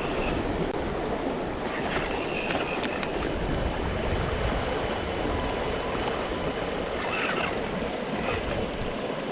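Stream water rushing steadily, with a few faint brief high whines and ticks over it.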